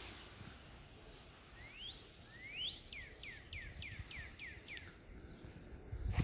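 A songbird singing: two rising whistles, then a quick run of about eight falling notes.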